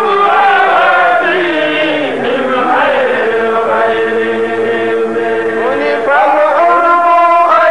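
A man chanting Arabic devotional verse in praise of the Prophet into a microphone, in long held notes that slide from pitch to pitch, a new phrase starting about six seconds in.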